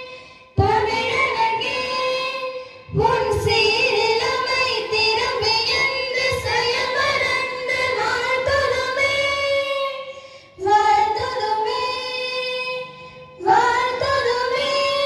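Female singing: a melody sung in long held notes, in four phrases separated by short breaks.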